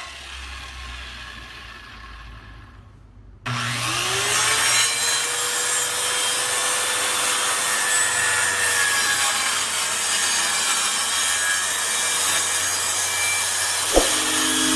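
Handheld electric power saw cutting plywood. It starts suddenly about three and a half seconds in, its motor whine rising and then holding steady under the noise of the cut, with a sharp knock near the end.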